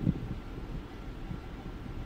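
Wind rumbling on the microphone, a steady low noise, with a soft low thump right at the start.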